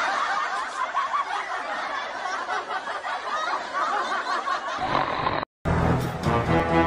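Laughter sound effect: many small high tittering voices overlapping in a dense mass, cutting off suddenly about five and a half seconds in. Music starts near the end.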